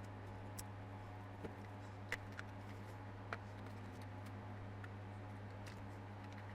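A few faint, scattered clicks and taps as the plastic casing of a cordless electric carving knife is handled and worked at to open it. A steady low hum runs underneath.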